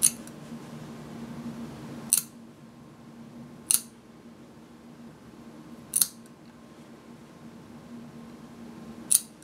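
Metal human toenail clipper snapping through a cat's claws: five sharp clicks, one claw cut every two to three seconds.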